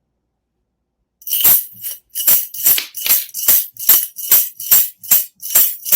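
A regular series of short scratchy rasps, about two and a half a second, starting about a second in, the first one longer than the rest. They are made with an object to imitate a cricket chirping.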